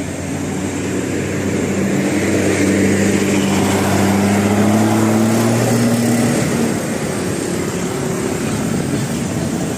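Large bus diesel engine running, its pitch rising steadily for a few seconds as it pulls away, then dropping back about six and a half seconds in.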